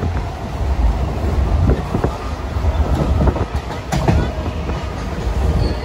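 Passenger train running, heard from inside the carriage: a steady low rumble with an irregular clatter of wheels over the rail joints.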